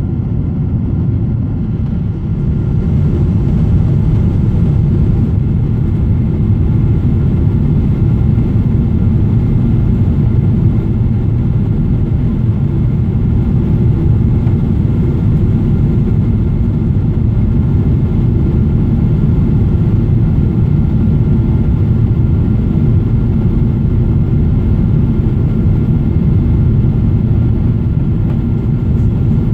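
Cabin noise of a Boeing 777 airliner during takeoff and climb: a steady low jet-engine and airflow roar with faint steady whining tones above it, growing louder about two seconds in and then holding level.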